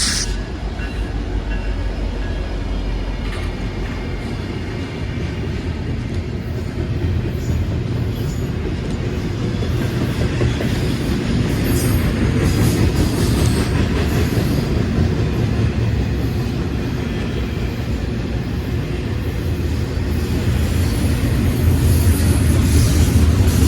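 Norfolk Southern train rolling past: a steady low rumble of wheels on rail with some clickety-clack and a few brief high wheel squeals.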